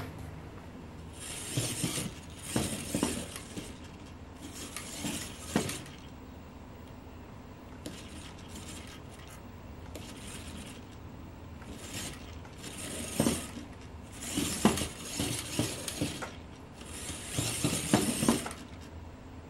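Small electric drive motor and 3D-printed gears of a 1/24-scale RC car whirring in several short bursts as the car drives in short spurts on a hard tabletop. Light plastic clicks and clatter come from the tyres and chassis knocking on the surface and on a small block that it climbs over.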